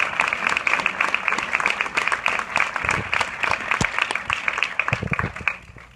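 Cinema audience applauding, many hands clapping, dying away near the end.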